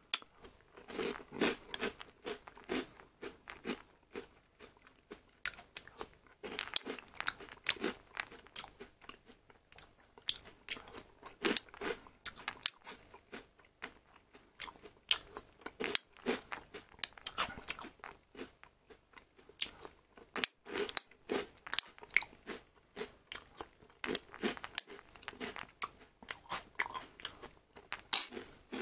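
A person chewing a mouthful of Kellogg's Honey Bsss Pops, honey-coated puffed corn balls in milk, heard as a fast, irregular crackle of crunches.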